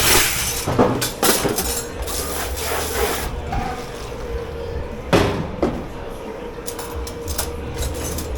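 Dishes, pans and utensils knocking and clattering as they are handled at a commercial dishwashing station, with a few separate sharp knocks, the loudest about five seconds in. A steady machine hum runs underneath, and a short rush of water-like noise dies away at the start.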